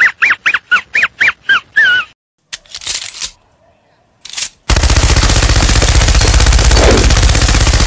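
Muttley's wheezy cartoon snicker, a quick run of short squeaky rising-and-falling sounds, about five a second for two seconds. Two short noises follow, then from a little past halfway a heavy machine gun fires in one continuous rapid burst.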